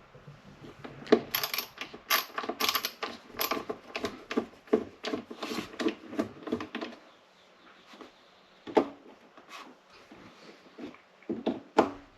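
Hand screwdriver working at the coffee maker's screws, a dense run of metallic clicks and scrapes for about six seconds, then a few scattered clicks near the end. The screw heads are stripped, so the tip keeps slipping rather than turning them out.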